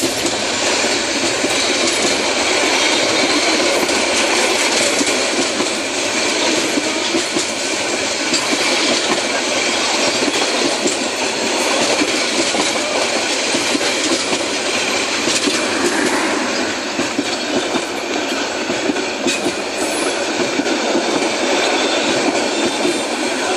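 Bangladesh Railway intercity passenger coaches rolling past close by, steel wheels clattering on the rails in a loud, steady, rapid clickety-clack.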